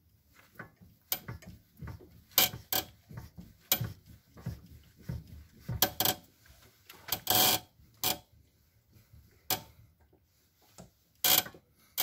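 Lifan X60 rear suspension creaking and squeaking over and over as it is worked up and down, in irregular sharp creaks with one longer squeak about seven seconds in. The owner puts the squeak down to a rubber suspension bushing (silent block) whose boot has torn.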